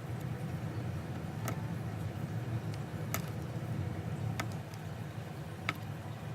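Four small sharp clicks, about a second and a half apart, of small repair tools against an iPhone's internal parts, over a steady low hum.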